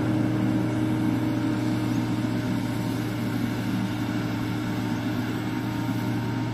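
Motor grader's diesel engine running steadily as the grader moves along a dirt road.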